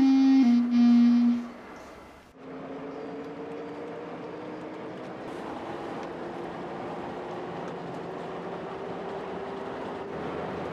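Held flute-like music notes, cut off about a second and a half in. Then a car running, heard from inside the cabin: a steady rush of road noise with a low engine tone that rises slowly as it gathers speed.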